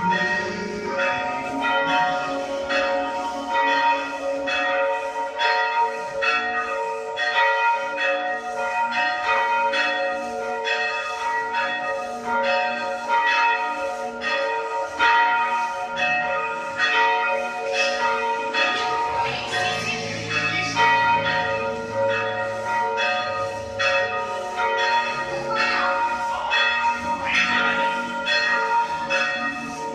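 Church bells ringing continuously, struck in quick succession so that their tones overlap and hang on.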